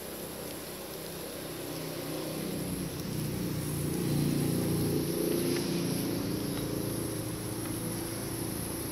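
A low engine rumble swells to its loudest about four to six seconds in and then slowly fades, over a steady high hiss.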